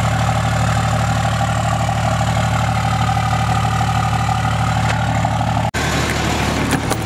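Dodge pickup's 5.9 Cummins inline-six turbo-diesel idling steadily at the exhaust tip, a low even rumble with a steady high whine above it. About six seconds in the sound breaks off for an instant and the idle then continues as heard inside the cab.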